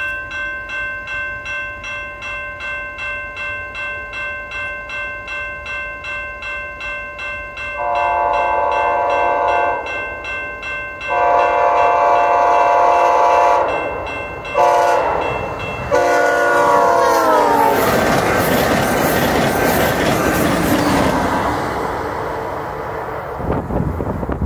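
Railway crossing bell ringing about twice a second, then a VIA Rail Siemens Charger passenger train sounding its horn for the crossing: long, long, short, long, the pitch dropping on the last blast as it goes by. The train then rushes past at high speed with loud wheel-on-rail noise that fades near the end.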